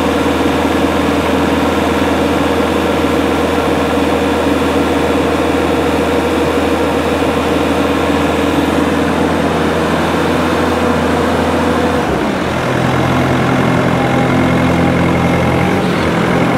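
Doosan D24 common-rail diesel in a Bobcat S530 skid-steer running at full throttle under hydraulic load. Its rail pressure is fluctuating and dropping away, which the mechanics take for a fuel delivery problem that makes the engine want to die off. About twelve seconds in, the engine note changes and briefly dips.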